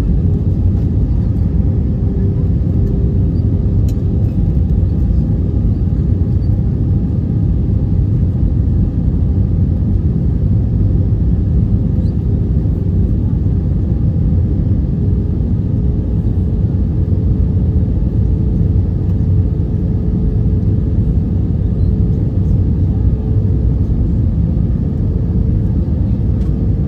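Steady cabin noise inside an Airbus A320 in flight: a deep, constant rumble of the engines and the airflow. Over it runs a faint humming tone that rises slightly in pitch toward the end.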